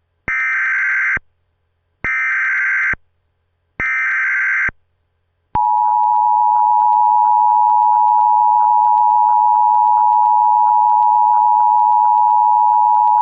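Emergency Alert System tones. First come three bursts of SAME header data tones, each just under a second long and about a second apart, encoding the alert. Then, from about five and a half seconds in, the steady two-tone EAS attention signal sounds, the signal that comes before the spoken alert message.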